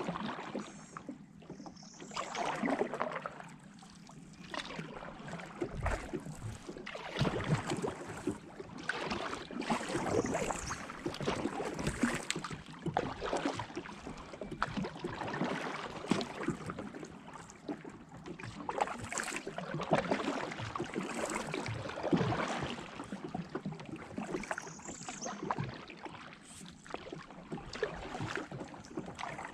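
Kayak paddle strokes: the blades dip and splash in the water in surges roughly every two seconds.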